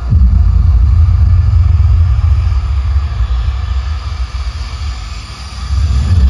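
Loud, deep bass rumble from a stage show's sound system; it eases off over a few seconds and swells back up about six seconds in.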